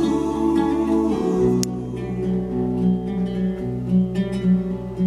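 Acoustic guitar music with a bass line, played back through a home speaker system of Bose Double Cube satellites, an Infinity BU-1 subwoofer and a Martin Logan Motion 6 center speaker.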